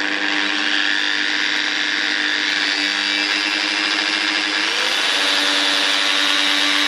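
Corded hammer drill's motor running continuously with a whine, its pitch rising to a higher speed about two-thirds of the way through. The freshly rewired drill works but is "not happy": it smells burnt and its speed controller is running hot.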